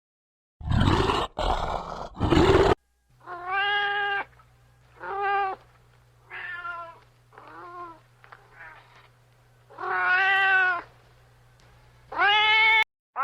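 Three harsh, rough calls in quick succession, then a domestic cat meowing about seven times, some meows faint, over a low steady hum.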